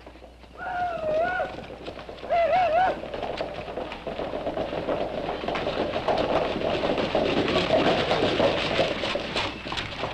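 Mounted raiders' warbling war whoops, two short wavering cries, followed from about three seconds in by the clatter of galloping horses' hooves, with more whooping mixed in as the riders close in.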